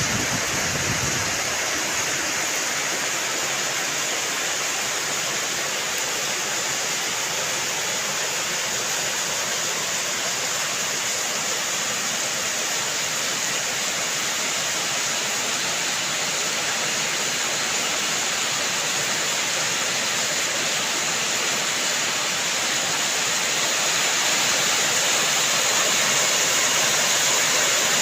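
Steady heavy rain, a continuous hiss of falling water with no separate drops standing out, growing slightly louder near the end.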